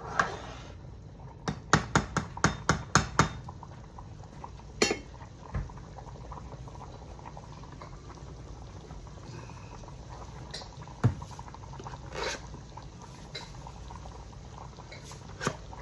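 A utensil clinking against a pan, a quick run of about seven clinks about a second and a half in, then a few single clinks, over the steady bubbling of tomato gravy simmering in the skillet.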